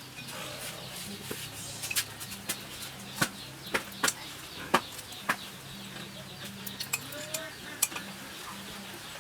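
Cutlery clinking against dishes in a string of irregular sharp clicks, over a faint steady low hum.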